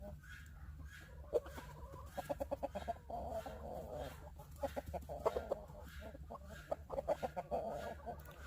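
Chickens clucking in quick runs of short notes, with denser stretches of clucking about three seconds in and again near the end.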